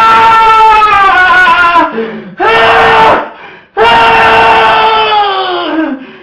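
Loud, high-pitched wailing cries, three drawn-out ones in a row, the last sliding down in pitch as it ends.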